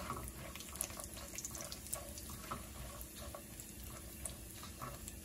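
Raw peanuts, cumin seeds and a cinnamon stick frying in hot ghee in a nonstick pan: a steady sizzle with frequent small, irregular pops and crackles, stirred with a silicone spatula.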